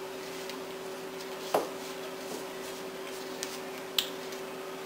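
Two short knocks, about a second and a half in and again near the end, as a metal box grater is handled and set against a plastic cutting mat on a wooden board, over a steady low hum.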